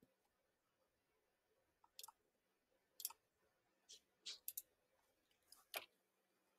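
Near silence broken by a handful of faint, sharp clicks from operating a computer, starting about two seconds in, with several in quick succession near the end.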